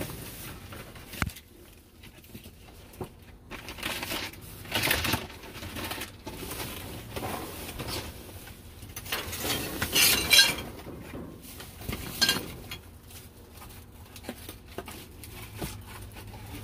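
Discarded items being rummaged through and handled: rustling and light clinking of objects knocked together, in uneven bursts that are loudest about ten seconds in.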